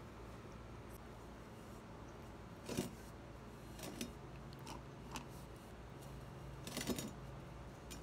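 A few light clicks and clinks of paintbrushes and paint supplies being handled on a glass-topped table, the two loudest about three and seven seconds in.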